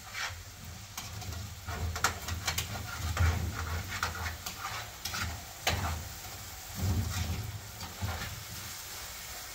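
Food sizzling in a frying pan on a gas stove, with a utensil clicking and scraping against the pan as it is stirred.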